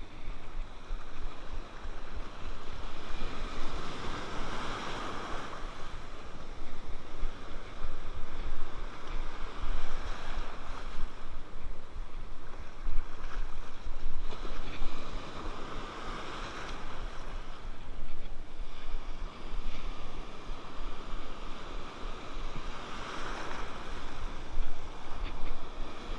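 Surf washing and breaking around a wading angler's legs, surging about every six seconds, with wind buffeting the microphone.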